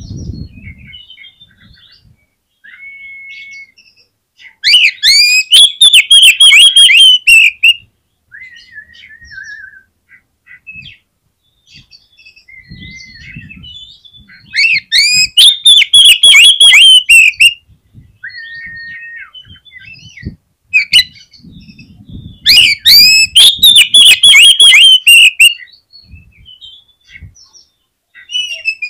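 Oriental magpie-robin (kacer) singing: three loud runs of fast repeated notes, each about three seconds long, with softer drawn-out single whistles in the pauses between them.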